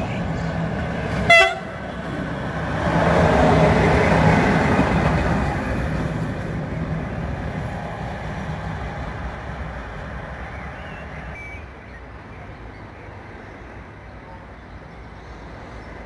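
An electric locomotive gives one short, sharp horn blast about a second in, then passes close by, its rumble of wheels and running gear swelling and fading away as it moves off.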